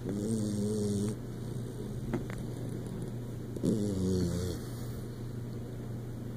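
Bluetick coonhound snoring: two pitched snores about a second long, nearly four seconds apart, over a steady low hum.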